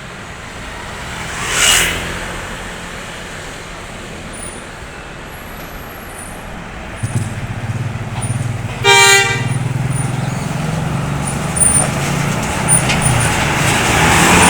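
A bus's engine rumbles low from about seven seconds in, growing louder as it draws near. Its horn gives one short toot about nine seconds in. Earlier, a vehicle rushes past about two seconds in.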